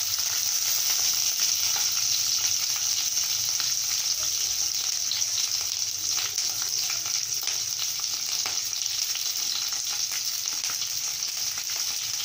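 Hot oil sizzling steadily in a kadai with fine crackling as green chillies, shallots, a dried red chilli and freshly added curry leaves fry with mustard seeds.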